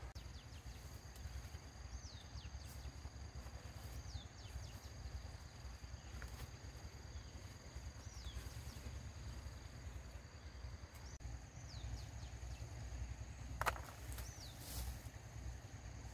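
Rural outdoor ambience: a bird repeats a short, falling whistle every couple of seconds over a steady, high insect drone, with a low rumble underneath. A single sharp click near the end is the loudest sound.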